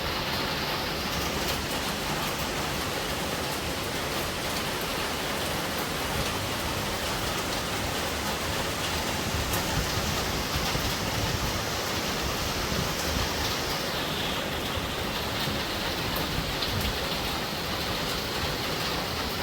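Heavy rain falling steadily, a dense even hiss without breaks.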